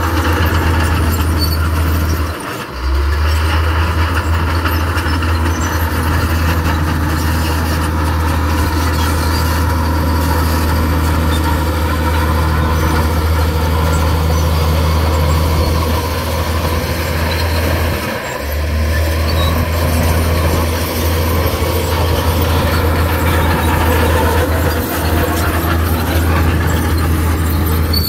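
Heavy earthmoving machinery running under load: a steady deep diesel engine drone over dense mechanical noise, dropping out briefly twice.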